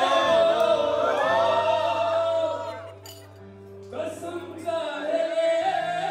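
A song playing with a group of people singing along, dropping to a short lull about three seconds in before the singing picks up again.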